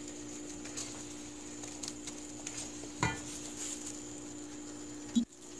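A ladle stirring and scraping thick, bubbling coconut-caramel topping in a pan, with faint scrapes and one sharper knock of the ladle against the pan about three seconds in, over a steady low hum.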